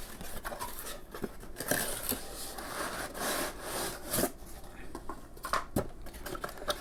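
Cardboard box and packaging of a CPU air cooler being opened and handled: irregular rubbing and sliding of cardboard with scattered clicks and knocks.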